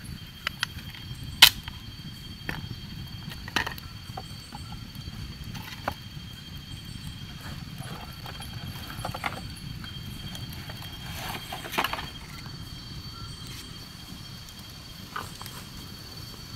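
Scattered sharp clicks and snaps, the loudest about a second and a half in and a cluster near the end of the second third, over a steady low hiss and a faint high steady whine.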